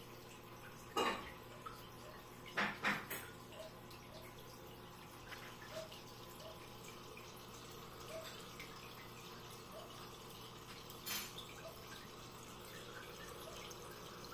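Aquarium filter running: a steady low hum under water trickling and dripping in small, evenly paced drops. A few sharp clicks stand out, about a second in, twice near three seconds, and around eleven seconds.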